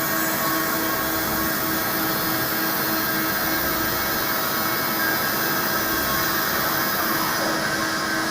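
Hartford CNC milling machine running a 2D milling job: a steady machine drone with a few fixed tones over a high hiss. The highest hiss falls away near the end.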